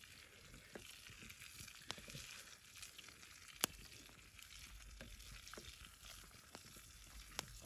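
Bratwurst sausages frying in butter in a pan: a steady sizzling hiss with scattered sharp pops, the loudest about three and a half seconds in.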